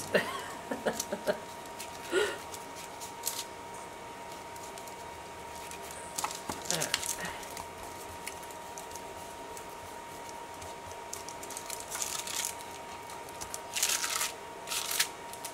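Paper rustling and crinkling in short, scattered bursts as glued paper is handled and pressed down by hand, over a faint steady tone.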